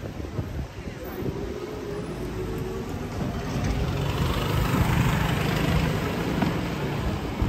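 A motor scooter passing close by on a wet cobbled street: its small engine hum and a tyre hiss swell about halfway through and ease off near the end, over steady street noise.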